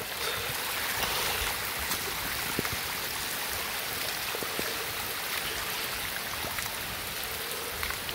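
Muddy rainwater runoff streaming down a paved road in a heavy rainstorm: a steady rushing of water, with a few faint ticks scattered through it.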